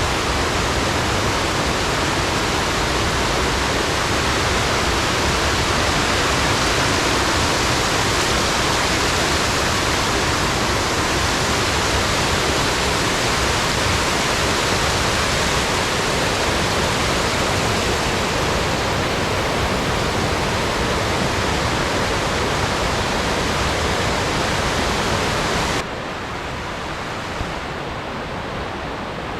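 Waterfall on Oneonta Creek rushing in a steady, even roar of falling water. It drops abruptly to a quieter level about 26 seconds in.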